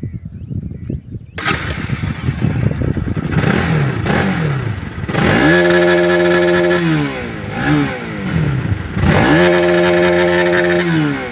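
Bajaj single-cylinder motorcycle engine running low, then revved hard twice. Each time the pitch climbs quickly, holds steady at high revs for about a second and a half, and falls back, with a short blip of the throttle between the two pulls.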